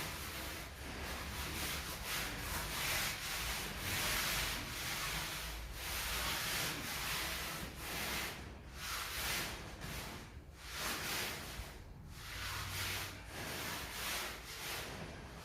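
A tool scraping and rubbing over a sand-cement mortar floor bed in repeated strokes, with short pauses about two-thirds of the way through, as the screed is worked to its slope.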